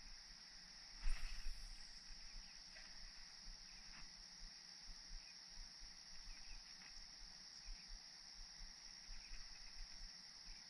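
Steady high-pitched chorus of insects, with a short louder noise about a second in and a few faint ticks.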